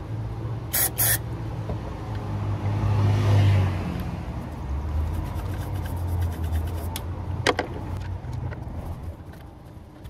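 Low rumble of a passing road vehicle that swells and fades about three to four seconds in, with a few sharp clicks: two close together about a second in and one more past the middle.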